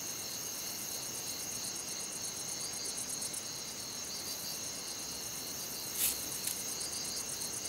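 Crickets chirring at night: a steady, high, fast-pulsing trill. One sharp click about six seconds in.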